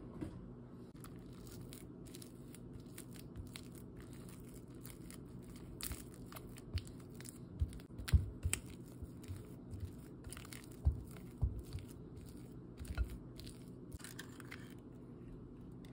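Silicone spatula mashing and spreading a block of cream cheese in a glass bowl: soft squishing with many small clicks as the spatula works against the glass, and a few dull knocks in the middle, over a steady low hum.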